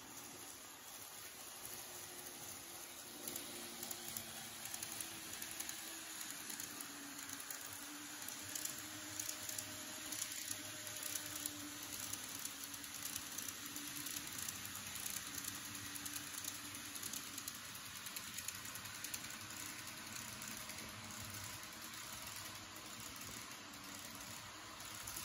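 Model 583 series electric train running on a layout: a steady rolling hiss of its wheels on the track, with a faint wavering motor hum and fine rapid ticking.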